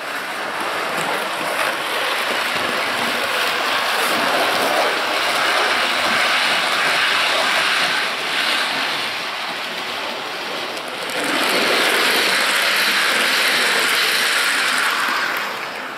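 Model railway train, an E412 electric locomotive with a short rake of sliding-wall wagons, running along the track with a steady rumble of motor and wheels on the rails. It grows louder about eleven seconds in as the train passes close by.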